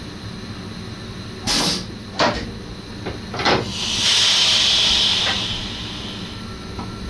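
Three sharp clunks, then a hiss of compressed air venting for about two seconds, in the cab of an NS SGM Sprinter electric train. It is the train's pneumatic system letting out air. Another clunk comes at the very end.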